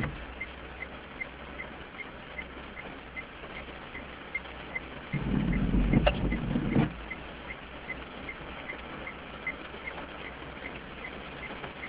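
Car windscreen wiper making one intermittent sweep across rain-wet glass about five seconds in, a swish lasting under two seconds with a click as it turns. Underneath, a steady patter of rain on the car and a faint regular tick about two and a half times a second.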